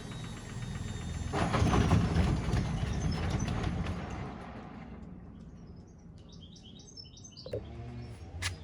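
Whirlpool washing machine running with a steady hum; a loud rush of noise rises about a second and a half in and fades over the next few seconds. Short high chirps follow, then a sharp click near the end.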